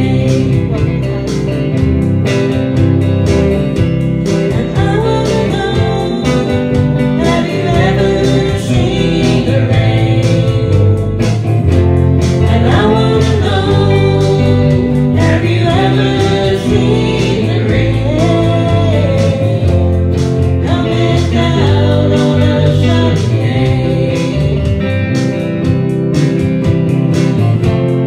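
A song playing: a voice singing over guitar and band with a steady beat.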